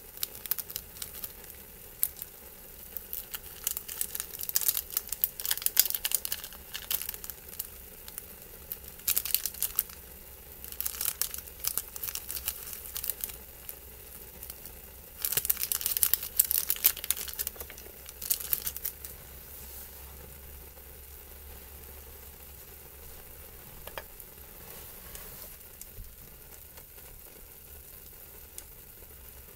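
Small plastic seasoning packets crinkling and tearing in repeated bursts as they are opened and squeezed out. After about twenty seconds this dies down to a faint steady hiss.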